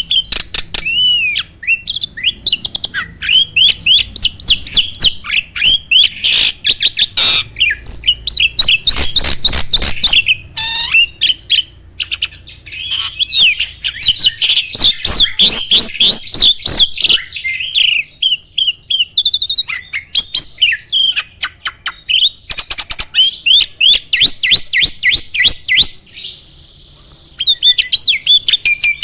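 A jalak (starling) singing a long, fast, loud song: rapid chirps and whistles mixed with many sharp, clicking rattle notes, with only brief pauses.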